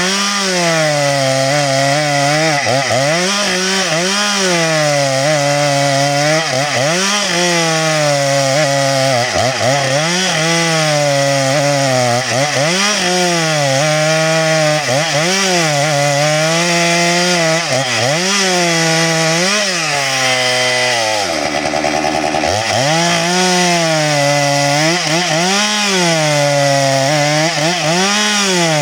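Stihl MS 462 two-stroke chainsaw at full throttle cutting through a log, its pitch dropping and recovering over and over as the chain bites into the wood. About 21 seconds in it briefly revs freely before cutting again.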